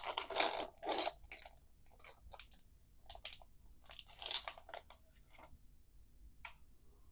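Foil wrapper of a trading card pack being torn open and crinkled, in irregular bursts that are loudest at the start and again about four seconds in, then stop.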